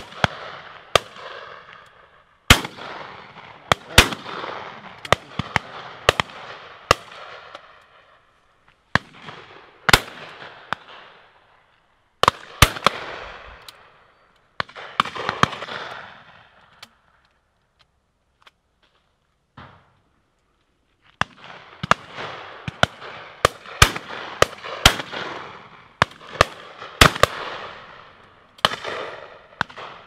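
Shotguns firing repeatedly from several guns along the line, sharp reports near and far, each trailing a long rolling echo, with a few seconds' lull about two-thirds of the way through.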